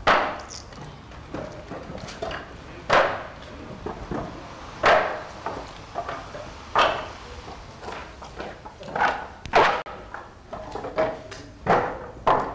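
A series of sharp wooden knocks, roughly every two seconds with smaller taps between: sawn blocks of scrap wood being knocked into place in an assemblage.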